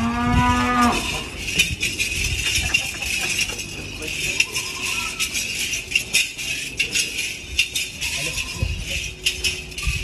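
Cattle mooing once, a single call about a second long right at the start. A steady clatter of small clicks and knocks runs on after it.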